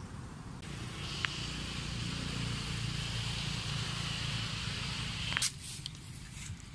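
Outdoor background noise: a steady hiss with a low rumble underneath, shifting abruptly about half a second in and again near the end, with a couple of faint clicks.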